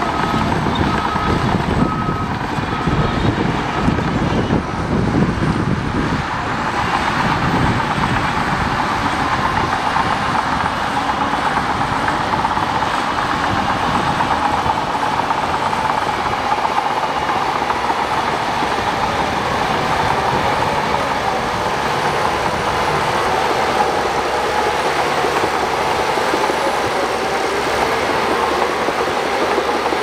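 Shantui DH17 crawler bulldozer working under load as it pushes soil: its diesel engine runs steadily while the steel tracks clank and rattle. The low rumble is heaviest in the first several seconds, then settles into a steadier, higher mechanical din.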